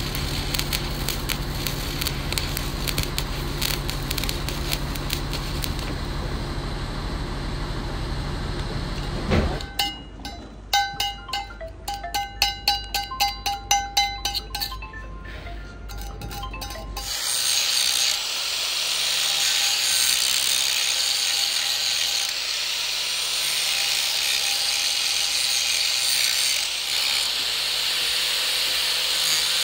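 Stick arc welding on steel, a steady crackle over a low hum, for about nine seconds. Then a run of sharp metallic taps that ring. From about seventeen seconds in, an angle grinder grinds down the fresh weld on the steel plate, running steadily.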